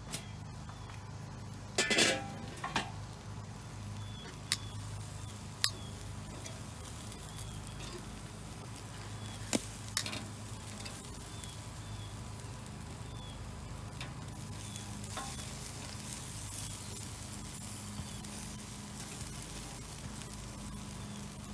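Chicken drumsticks sizzling on the grate of a charcoal Weber kettle grill, a steady hiss, with a handful of sharp clicks, the loudest about two seconds in.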